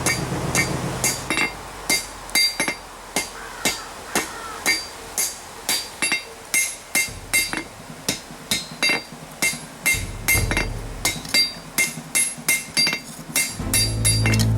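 Hand-hammer blows on hot rasp steel over an anvil, about two a second, each strike leaving a bright metallic ring from the anvil: the tip of the blade's point being forged out.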